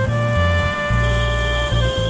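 Background music: held melodic notes over a bass line that changes note every half second or so.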